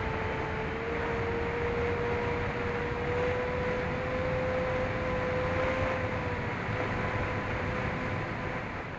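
Electric motors and propellers of an AtomRC Penguin twin-motor FPV plane humming steadily in flight, over a rush of wind, as picked up by the onboard camera. The propeller tone rises slightly as the throttle is opened and eases off a little past the middle.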